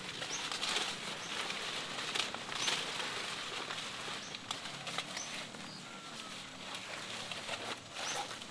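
Rustling and crackling of large banana leaves being handled, with several short, high bird chirps in the background.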